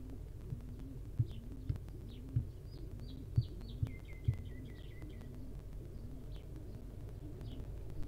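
Soft thumps of a barn owl nestling stepping and hopping on the nest box floor, half a dozen in the first half. Under them runs a low pulsing hum about twice a second, and birds chirp high in short notes, in a quick run near the middle.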